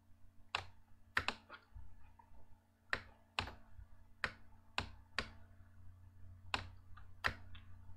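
About ten sharp, irregularly spaced clicks from a computer mouse and keyboard as blocks are copied and pasted in simulation software.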